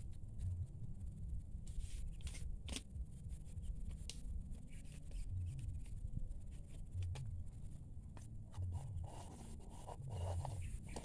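Quiet outdoor ambience: a low, fluctuating rumble with scattered faint clicks and ticks.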